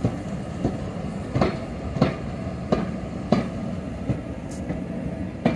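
Railway passenger coaches rolling past slowly, their wheels clicking over rail joints, with the clicks coming in pairs about half a second apart, over a steady low rumble.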